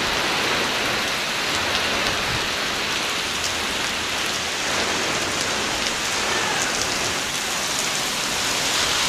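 Heavy hurricane rain driven by strong wind: a steady rushing hiss that stays even throughout.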